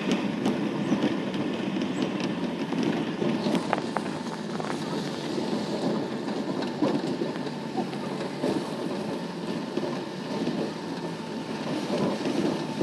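Cabin noise of a car driving over a rough, potholed dirt road: a steady rumble of engine and tyres, with scattered knocks and rattles as the car jolts over the bumps.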